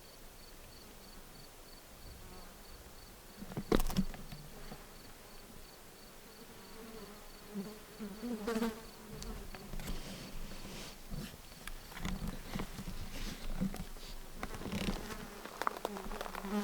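Insects buzzing: a fly or bee drones close by through the middle, over a faint, even, high ticking that repeats several times a second. Scattered knocks and rustles run through it, the loudest a sharp knock about four seconds in.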